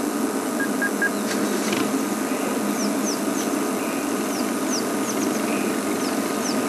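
Game-drive vehicle's engine idling steadily, with a series of short, high, falling chirps repeating through the second half.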